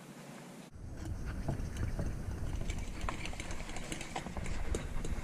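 A utensil stirring and mashing a fish-cake mixture in a glass mixing bowl, with scattered clicks of the utensil against the glass over a low rumble, starting suddenly about a second in.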